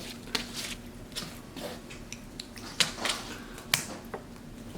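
A large ball of sticky slime being squeezed and slapped by a capuchin monkey's hands: irregular sharp wet clicks and smacks.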